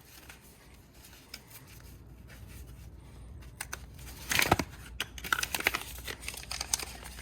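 Packaging being torn and crumpled as it is stripped off a newly assembled bicycle: little for the first few seconds, then a burst of crackling about four and a half seconds in, followed by short tearing scrapes and clicks.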